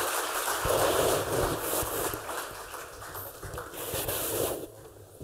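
Audience applauding, with dense overlapping claps that die away sharply near the end.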